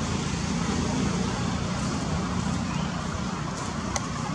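Steady low rumble with a hiss over it, outdoor background noise, and a single faint click near the end.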